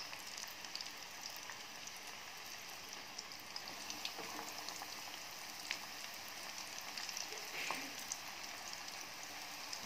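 Flour-coated chicken leg pieces deep-frying in hot oil: a steady sizzle with scattered crackles and pops.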